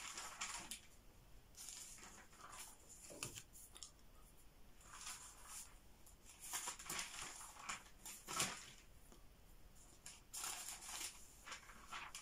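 Faint, irregular rustling of paper as the pages of a book are handled and turned, in short scattered bursts, with a soft thump a little over eight seconds in.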